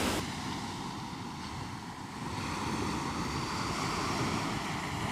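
Rough ocean surf washing in over a rocky shore: a loud rush of water breaks off abruptly just after the start, leaving a softer, steady wash of waves.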